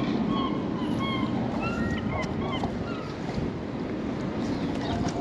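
Wind buffeting the microphone over open water, with birds giving many short, arched calls in the first three seconds or so.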